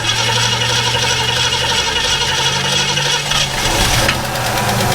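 1967 Ford Mustang's engine turning over on the starter in a start attempt, a steady mechanical drone with fast even ticking that shifts in tone just after three seconds in. The car has a no-start condition being traced to its fuel supply and carburettor.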